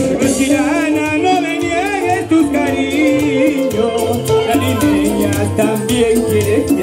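Live band playing Latin dance music with a steady beat.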